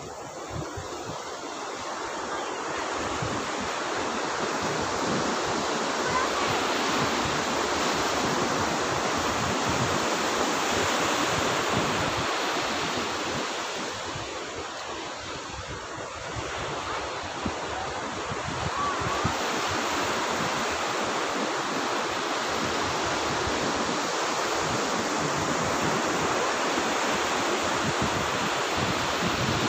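Ocean surf breaking and washing up the sand: a steady rush that swells, eases a little about halfway through, then builds again.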